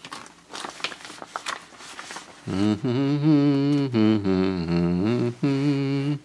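Plastic packaging crinkles, then about two and a half seconds in an adult hums a wavering tune in a low voice until just before the end.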